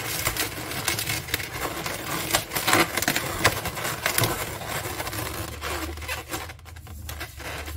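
Latex 260 modelling balloons rubbing and squeaking against each other and against hands as they are twisted and tucked, a dense run of crackly rubbing that eases off about six seconds in.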